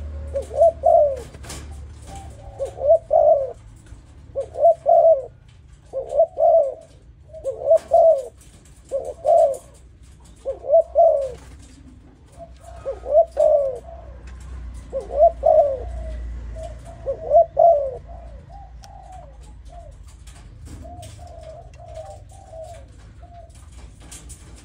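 Young Malaysian-line spotted dove cooing, repeating its short phrase about every second and a half. Near the end it gives softer, shorter calls.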